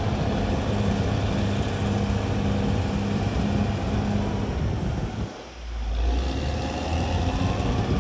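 CAT D6R XL bulldozer's diesel engine running steadily with a low hum. About five seconds in the sound drops out briefly, then comes back with a deeper, heavier rumble.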